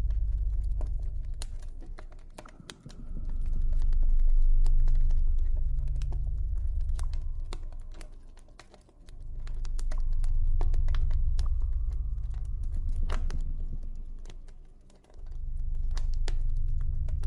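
Campfire crackling, with scattered sharp pops and ticks at irregular intervals, over a deep ambient drone that swells and fades in slow waves about every six seconds.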